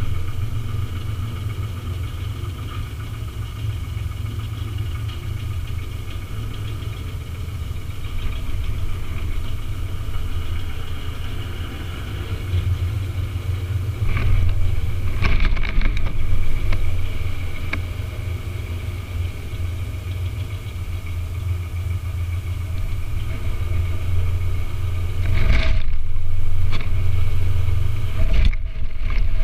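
Small site dumper's engine running as it is driven off a flat platform, getting louder about halfway through and again near the end, with a couple of sharp knocks.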